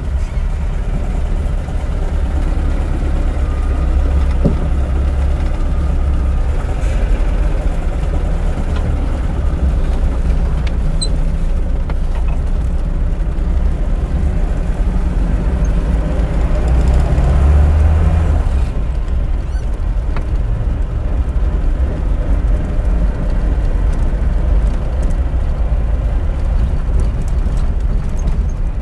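Lada Niva VAZ-2121's four-cylinder petrol engine running steadily with the car standing still. It grows a little louder for a couple of seconds about two-thirds of the way in, then settles back.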